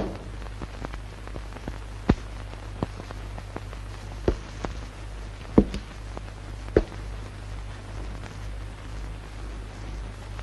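Steady low hum and hiss of an old film soundtrack, with scattered clicks and pops, the loudest about two, four, five and a half and seven seconds in.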